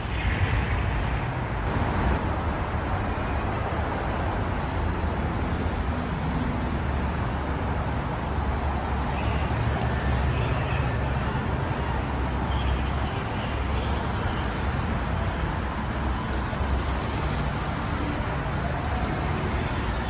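Steady road traffic noise from the street, a continuous wash with a low rumble.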